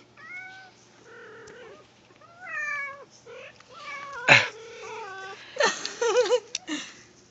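Kitten meows played from a cat sound app: a run of short, high meows one after another, some rising and some wavering. A sharp knock about four seconds in is the loudest moment.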